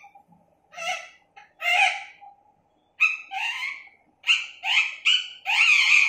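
Alexandrine parakeet calling: about seven short calls, their pitch bending up and down, with the last and longest one near the end.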